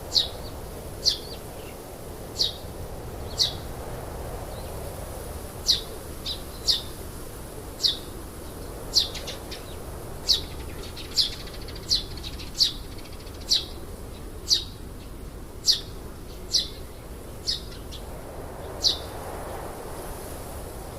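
A single bird calling with short, sharp chirps, roughly one a second with irregular gaps, over a steady background hiss.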